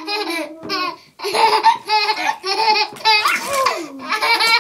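Baby laughing in a string of short bursts, one after another.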